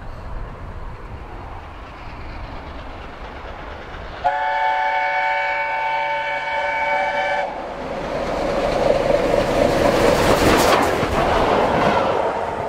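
LNER A4 steam locomotive 60009 approaching at speed with a low rumble. About four seconds in, its chime whistle sounds a steady chord for about three seconds. The engine then runs past close by, the noise of exhaust and wheels growing to its loudest near the end.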